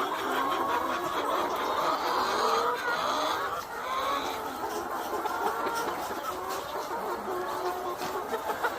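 A flock of chickens clucking, many birds calling over one another in a steady, unbroken chorus.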